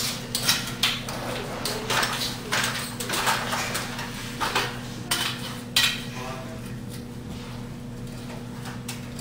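Glass T8 fluorescent tubes clinking and rattling against each other and the metal fixture as they are handled and lifted into place. A quick run of light sharp clinks through the first six seconds or so, then quieter, over a steady low electrical hum.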